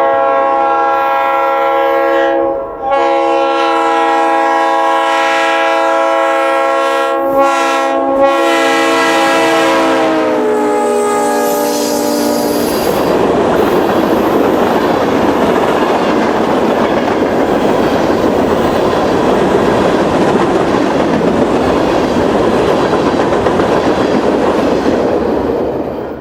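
Freight diesel locomotive's multi-chime air horn blowing two blasts, a short one and then a long one of about ten seconds. The chord drops in pitch as the locomotive passes. The horn then gives way to the steady rumble and clatter of the freight cars rolling by.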